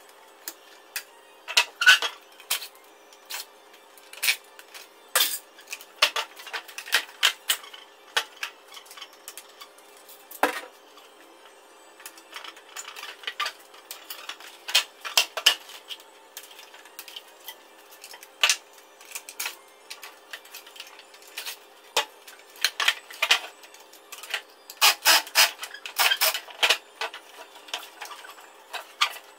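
Irregular sharp clicks and metallic clinks of hand pliers snipping and pulling at wires and plastic parts, as the electrical box of a wall-mounted air-conditioner indoor unit is stripped apart. The clicks come in clusters with short pauses between them.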